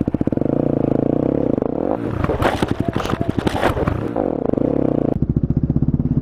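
Motorcycle engine running, its pitch rising and falling once, with metallic scraping and clattering in the middle as the bike is dragged over railway tracks.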